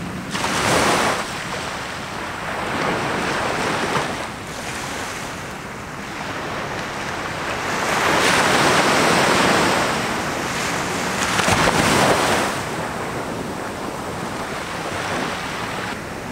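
Ocean surf breaking and washing up a sandy beach. It swells and ebbs in a few long surges, loudest about eight to ten seconds in.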